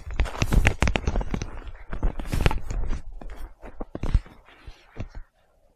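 Irregular crunching, rustling and knocking close to a loose clip-on microphone dangling against a coat. It is busiest in the first half and dies away near the end.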